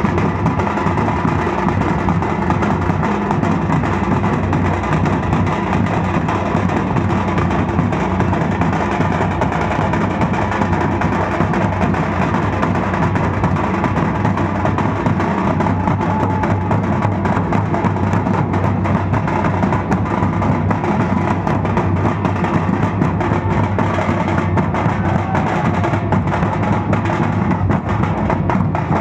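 Dhol-tasha ensemble drumming: big dhol barrel drums and small tasha kettle drums struck in a dense, unbroken rhythm at a steady level.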